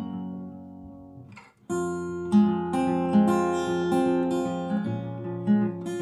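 Background music on acoustic guitar, a chord dying away to near silence about a second and a half in, then picking up again with a steady run of plucked notes.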